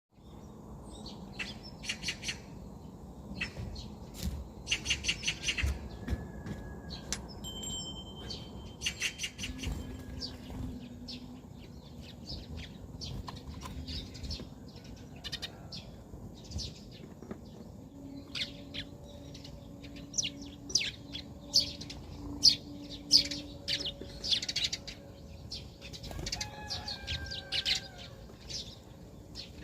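Small birds chirping in many short, high calls and quick runs throughout, over a steady low background rumble.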